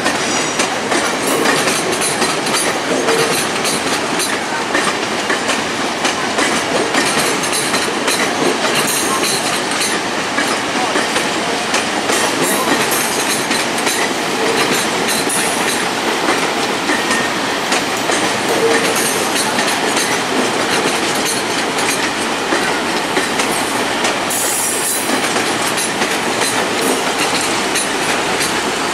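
Stainless-steel passenger cars of VIA Rail's Canadian rolling past, a steady rumble with wheels clattering over the rails. A brief high wheel squeal comes near the end.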